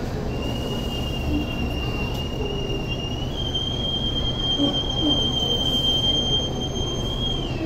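Hong Kong Light Rail car's wheels squealing as it rounds a tight curve through pointwork, over a low rolling rumble. The squeal is one long high whine that steps up in pitch about three seconds in and stops shortly before the end.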